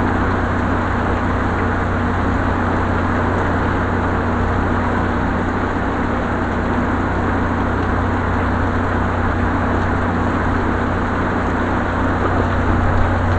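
Steady rain falling, an even hiss with a constant low hum beneath it.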